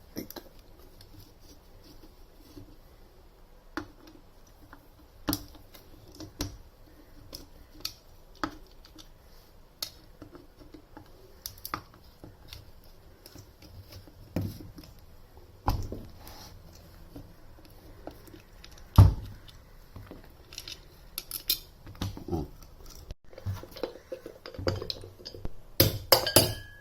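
Metal parts of a ceiling fan being dismantled by hand: scattered clinks and knocks as the motor body and parts are handled and set down, with one louder knock about two-thirds of the way through and a quick run of clatter near the end.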